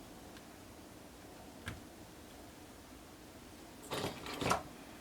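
Quiet room tone with a faint click, then two short knocks of handling close together about four seconds in.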